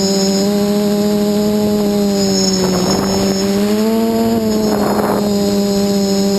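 Quadcopter's four SunnySky 2216 800KV brushless motors spinning 8x4.5 carbon propellers: a steady buzzing drone in flight whose pitch rises a little past the middle, then drops back as the throttle changes. There are two short rushing noises, about three seconds and five seconds in.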